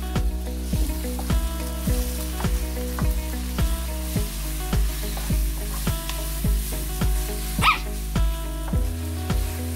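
Chicken, onion and tomato sizzling in a non-stick frying pan on a gas stove as they are stirred with a wooden spatula, under background music with a steady beat.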